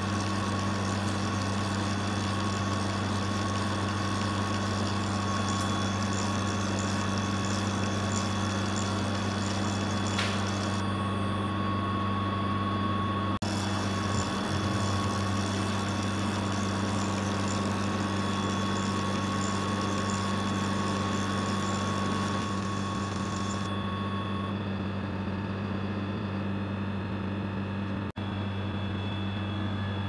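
Steady machine hum from a Radiometer ABL80 FLEX blood gas analyzer pumping solution through a newly installed sensor cassette during sensor initialization. A thin steady tone runs over the hum and stops about three-quarters of the way through, and the sound drops out for an instant twice.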